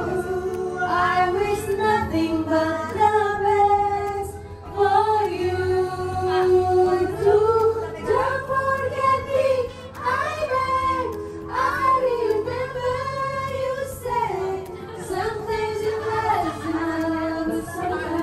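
Karaoke: a woman singing into a microphone over a backing track, holding long sung notes.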